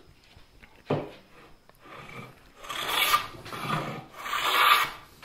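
Hand plane shaving along a twisted 2x4, taking down its high outside edge to flatten the board. There is a sharp knock about a second in, then two long rasping strokes in the second half.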